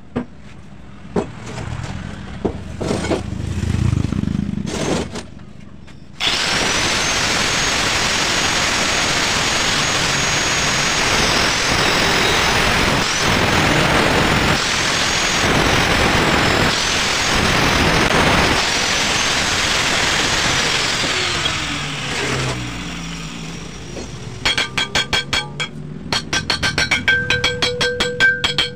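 Angle grinder cutting through a steel pipe: its whine cuts in about six seconds in and runs for about fifteen seconds, dipping and picking up again as the disc bites. Near the end comes a fast, even train of hammer blows on the bent pipe, each one ringing; they knock the sand packing out of the pipe. Before the grinder starts there are scattered knocks as the pipe is handled on the wooden bench.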